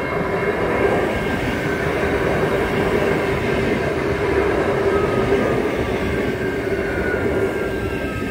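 Adelaide Metro electric multiple unit passing close by at speed, its wheels and running gear rumbling steadily with a constant hum. Near the end a few high tones slide down in pitch.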